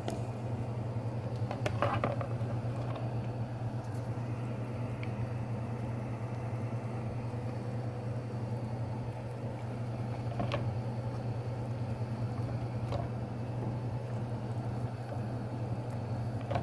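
Steady low hum and rumble of a kitchen beside a pot on a gas stove, with a few faint light clicks scattered through it.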